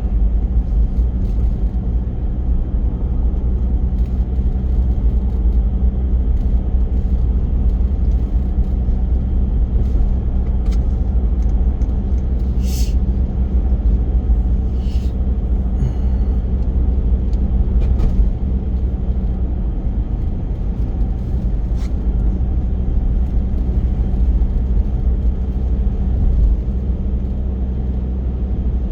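Car driving along a road, heard from inside the cabin: a steady low engine and tyre rumble, with a few short knocks around the middle.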